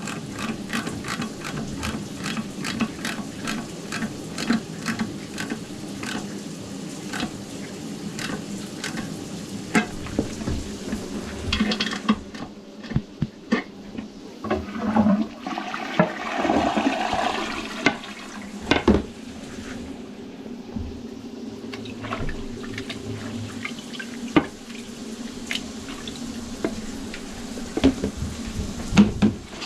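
Water flushing and gurgling through a backed-up drain line, with a steady low hum and regular clicking about twice a second; the water is loudest about halfway through.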